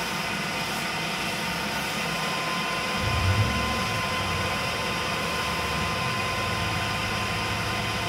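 Steady mechanical whir and hiss with a thin steady whine. A low hum joins about three seconds in, briefly louder at first, then holds.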